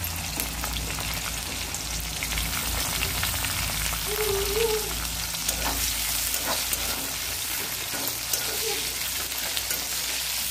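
Sliced onions frying in hot oil in an aluminium kadai, with a steady sizzle full of fine crackles. From about the middle on, a metal spatula stirs and scrapes them against the pan, adding a few sharper clicks.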